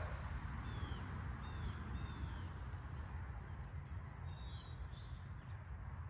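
Outdoor wind rumbling low and steady on the microphone, with a few short bird chirps that fall in pitch.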